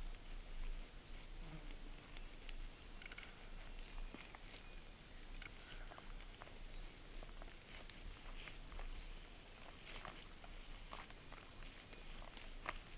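Outdoor forest ambience of a steady, high insect drone, with short rising chirps every couple of seconds and scattered light clicks and taps.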